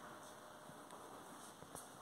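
Near silence: faint steady hiss with a few faint footsteps on a hard floor.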